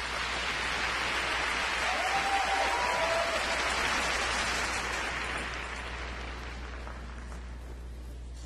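Arena crowd applauding a skater announced onto the ice, swelling over the first few seconds and dying away after about five seconds.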